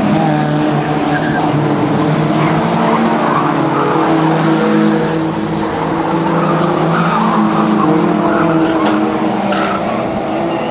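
A pack of historic stock cars racing, several engines running hard at once at different pitches, with the hiss of tyres sliding on the loose track surface.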